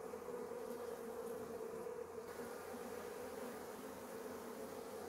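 Honeybees on an opened hive humming steadily, the buzz of many wings from the frames.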